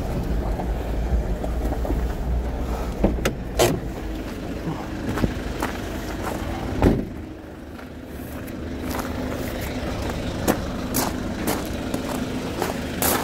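A motor vehicle's engine running with a low rumble that drops away about seven seconds in, with scattered knocks and clicks.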